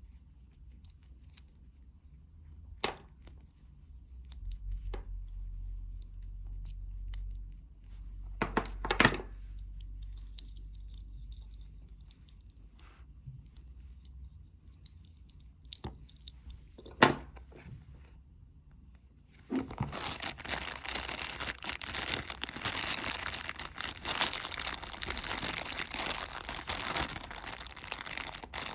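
Small items being handled: a few sharp clicks and knocks, then, about two-thirds of the way in, a continuous dense crinkling and rustling that keeps going.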